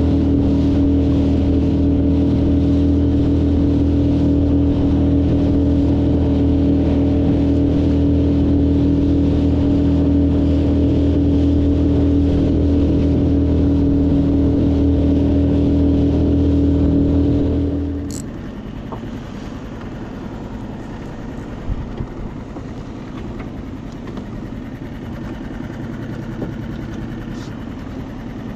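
Small 5-horsepower boat outboard motor running steadily at constant speed, then shutting down about eighteen seconds in, leaving a lower steady hiss with a few faint clicks.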